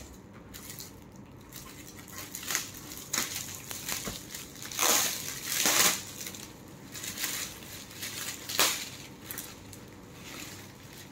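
Metallic foil gift wrap crinkling and rustling in irregular bursts as it is pulled off a boxed gift, loudest about five to six seconds in and again briefly near nine seconds.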